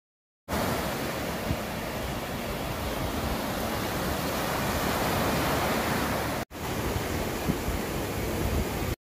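Waves breaking on the beach with wind buffeting the microphone: a steady rush of noise that starts abruptly, drops out for an instant about six and a half seconds in where the clips are joined, then resumes.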